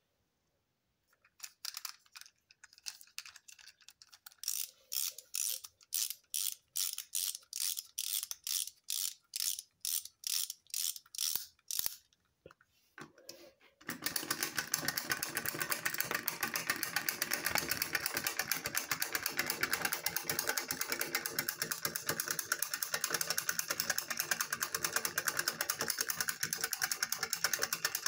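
Wind-up penguin toy being wound, its ratchet clicking about two or three times a second. About fourteen seconds in, the released clockwork motor starts a steady rapid whirring clatter as the toy walks across the table.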